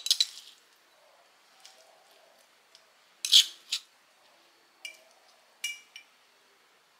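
Metal spoon scraping ground chilli sambal out of a stone mortar and clinking against a small ceramic bowl. A few short scrapes, the loudest about three seconds in, then two ringing clinks near the end.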